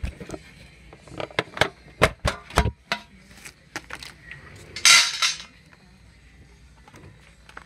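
A boxed candy bar being handled in a thin metal tray: a run of sharp clicks and knocks of the box against the tray, then a short scraping burst about five seconds in.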